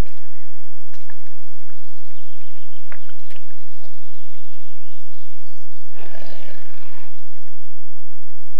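A moose gives one short, rough, breathy call about six seconds in, lasting about a second, over scattered soft clicks.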